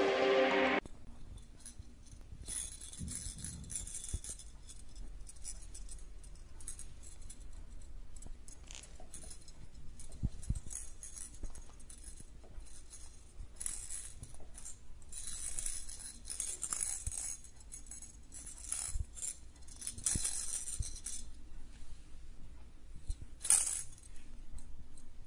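A small plastic toy mouse rattling in irregular bursts as kittens bat and nose it, with a few soft knocks. A short burst of music ends within the first second.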